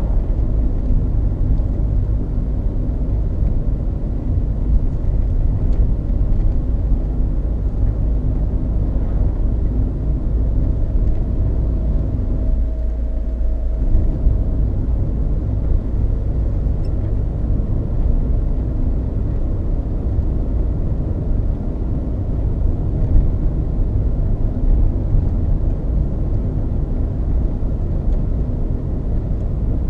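Really loud tyre road noise inside a Peugeot 306 2.0 HDi's cabin, a steady low rumble from its worn Dunlop Sport BluResponse tyres; about twelve seconds in, over a short patch of smooth tarmac, it drops noticeably for a second or two, then comes back. The owner wonders whether tread wear is the cause, with balancing, alignment, bearings and suspension already checked fine.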